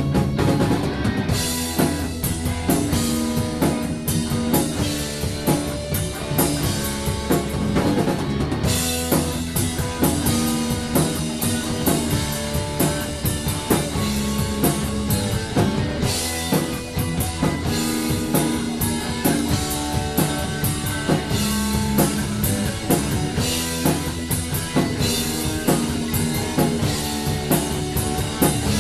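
Rock music with a full drum kit and electric guitar playing a steady beat, with no vocals.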